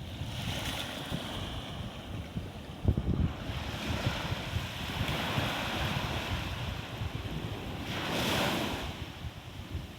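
Sea waves breaking and washing in, with wind buffeting the microphone. The wash swells several times, loudest about eight seconds in.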